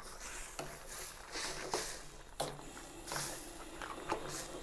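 A pot of crab soup boiling on the stove as tomato pieces are put in, giving irregular soft splashes and knocks.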